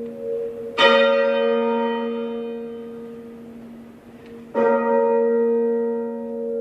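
Church bell tolling: struck twice, about four seconds apart, each stroke ringing on and slowly fading over the hum of the stroke before.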